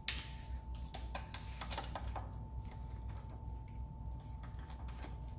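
Scattered light clicks and taps of hand tools and metal parts as the starter motor is taken off an outboard engine, most of them in the first couple of seconds, over a steady low hum.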